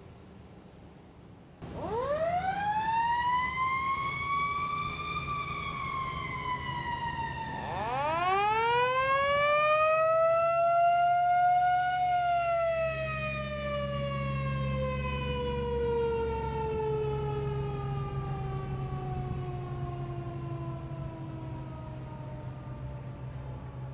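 Mechanical fire siren on a vintage fire engine, wound up twice: it starts suddenly about two seconds in, rises to a peak and sags, then winds up again and peaks around twelve seconds before falling slowly in a long wind-down. A low engine rumble runs underneath.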